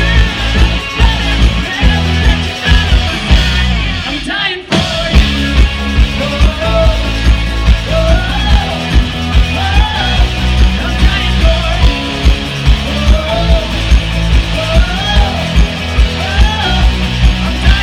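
Live rock band playing loud: a Spaun drum kit keeps a steady beat under electric guitar and a sung melody. The band cuts out for a moment about four seconds in, then comes back in with the singing.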